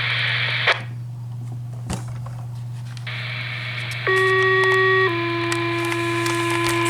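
Fire dispatch radio heard over a scanner: a click as one transmission drops, radio hiss as the next keys up, then a two-tone sequential page, a steady tone for about a second followed by a slightly lower tone held longer, the alert that sets off fire department pagers. A steady hum lies under it.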